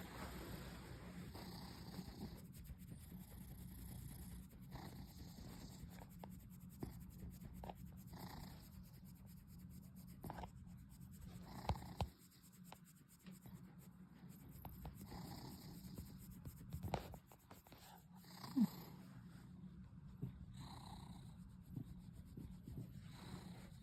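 Domestic cat purring steadily while being stroked, with a few short taps and rubbing noises.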